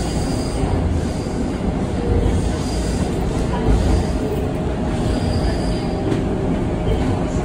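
Seoul Subway Line 2 2000-series electric train running at speed, heard from inside the passenger car: a steady rumble of wheels on rail, with a faint high squeal from the wheels that comes and goes.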